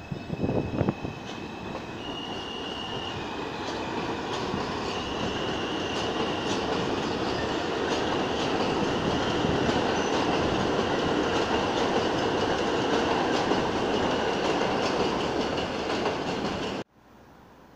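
New York City subway train running on the elevated tracks. Wheels click over rail joints in the first second, then a steady rumble with a high whine grows louder and holds, cutting off suddenly near the end.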